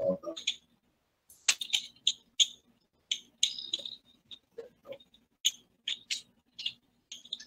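Irregular sharp clicks and taps from small electronic parts being handled: an Arduino board with its wires and LED. A faint steady hum runs underneath.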